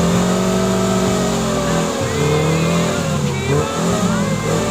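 A car engine revving under load, its pitch rising and falling several times as the throttle is worked.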